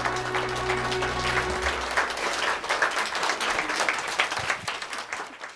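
Audience applauding at the end of a live song, over the song's last sustained chord, which dies away about a second and a half in; the clapping then fades out near the end.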